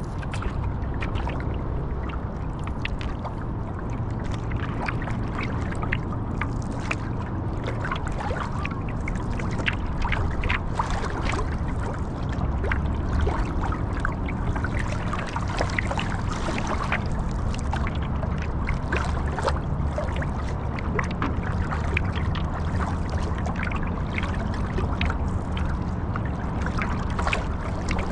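Water splashing and trickling around a stand-up paddleboard being paddled, with many small irregular splashes and drips over a steady low rumble.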